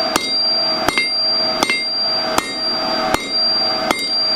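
A 3.5-pound rounding hammer strikes hot 12 mm square steel stock on an anvil about six times, evenly spaced a little more than one blow a second, each blow followed by a ringing tone. These are the half-on, half-off blows that draw the bar out into a taper.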